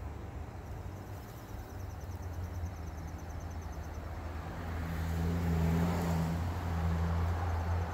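A motor vehicle's engine running with a low, steady hum that grows louder about halfway through, with a faint pulsing insect trill in the background.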